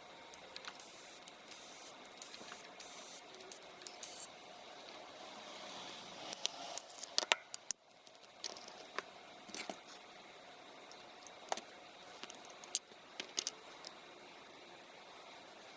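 Scattered light clicks and short scrapes of small parts and tools being handled on a worktop, a flurry of sharp ticks about six to seven seconds in.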